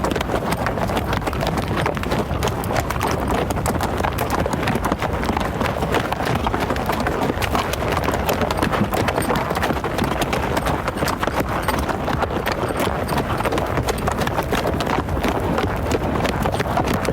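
Hoofbeats of running hoofed animals, a dense unbroken clatter of many hooves.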